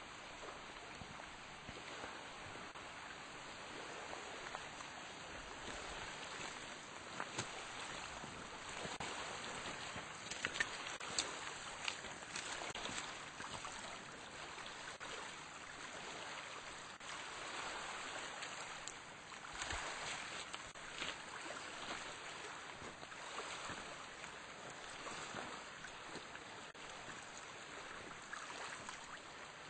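Faint water washing and lapping at the shore, swelling and fading, with a few sharp clicks near the middle.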